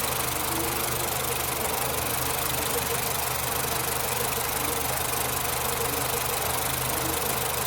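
Nissan Platina's four-cylinder engine idling steadily with an intermittent misfire that now and then makes it run rough and shake.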